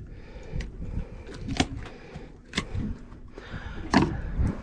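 A few sharp knocks and thuds against the boat, the loudest near the end, over a steady low rumble of wind and water.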